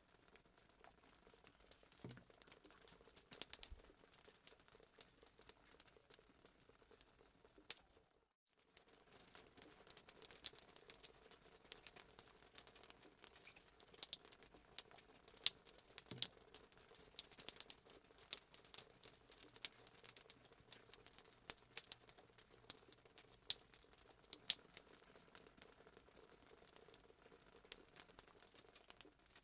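Fireplace sound effect: a wood fire crackling with many small, irregular pops and snaps. It cuts out for a moment about eight seconds in, then carries on.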